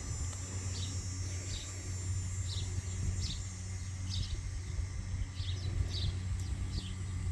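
A bird chirping short, repeated calls, roughly one every half second to second. Under it run a steady high insect-like whine and a steady low hum.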